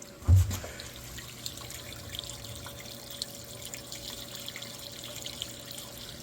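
A dull thump about half a second in, then water trickling and dripping from an opened boiler drain that is barely flowing, over a steady low hum.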